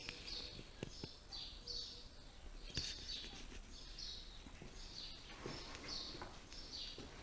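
Small birds chirping faintly: a steady run of short, high chirps that fall in pitch, about two a second, with a few soft knocks in between.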